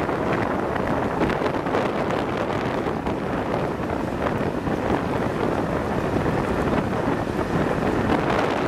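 Strong wind buffeting the microphone: a steady, gusting rush that covers everything else.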